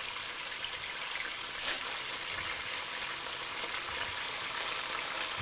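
Beef roasts searing in hot olive oil in an enamelled Dutch oven, a steady sizzle, with one brief louder noise about a second and a half in.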